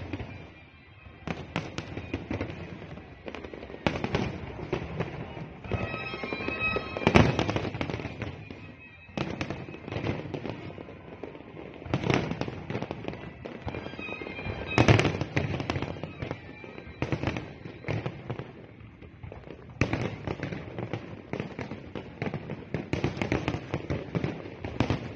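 Fireworks display: a continuous run of bangs and crackling. Heavier booms come about seven, twelve and fifteen seconds in, and dense crackling fills the last few seconds.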